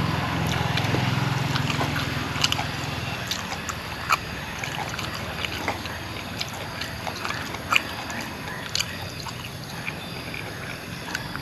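A person chewing food close to the microphone, with wet mouth clicks and smacks scattered through. A low hum underneath fades away over the first few seconds.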